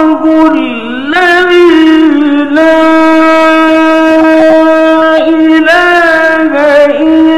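A male Quran reciter's solo voice chanting a recitation in the melodic mujawwad style. The pitch dips and climbs back about a second in, then settles into one long held note for nearly three seconds, before ornamented turns near the end.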